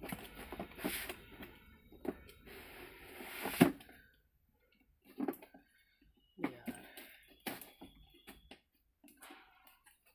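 Hands opening a cardboard box: two long rasping pulls in the first few seconds, ending in a sharp snap, then after a short lull scattered taps, scrapes and rustles of fingers working at the box's tape and flaps.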